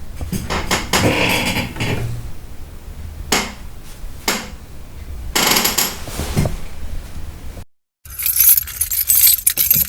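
A series of clinks and knocks, with sharp strikes about three seconds in, again a second later, and a cluster around five to six seconds in. After a brief silence, a brighter rattling clatter starts near the end.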